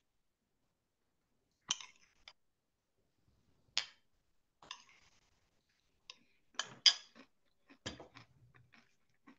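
Scattered, irregular clicks and clinks of small hard objects being handled, starting about two seconds in, with a few louder sharp clinks near the middle.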